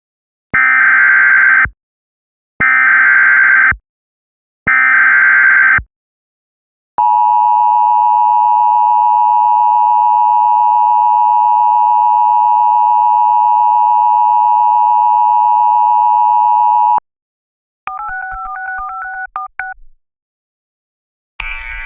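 Emergency Alert System tones: three bursts of screeching data tone about a second long each, with a second between them (the SAME header), then the steady two-tone attention signal held for about ten seconds. Near the end comes a short run of beeps alternating between a high and a low pitch.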